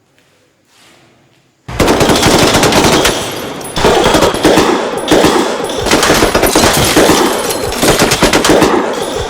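Automatic gunfire in long, rapid bursts, starting suddenly about two seconds in and very loud. The bursts run almost without a break and fade near the end.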